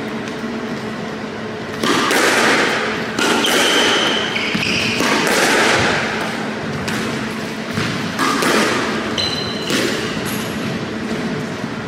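A squash rally: a rubber squash ball knocked by rackets and smacking off the court walls every second or so, with short high squeaks in between. Several stretches of louder rushing noise run under the knocks.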